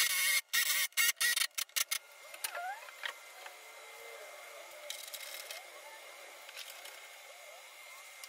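Cordless impact driver hammering in rapid short bursts for about the first two seconds as it drives screws through a metal pipe flange into plywood; after that only faint background sound remains.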